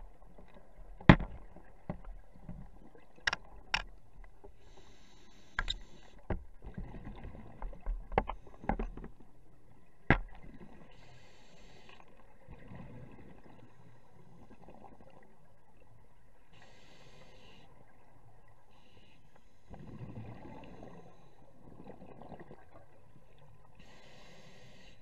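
Scuba diver breathing through a regulator, heard underwater: a short hiss on each breath in, every five or six seconds, and a low bubbling rumble on the breaths out. Sharp clicks and knocks come in the first ten seconds.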